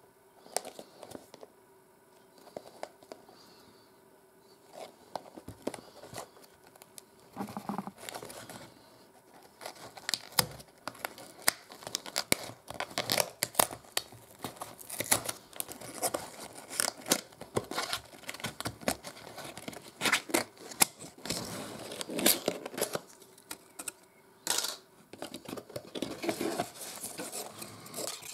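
A small cardboard retail box being opened by hand: a seal torn off, then card flaps and the insert rustling, scraping and crinkling. Light handling for the first several seconds, much busier from about seven seconds in.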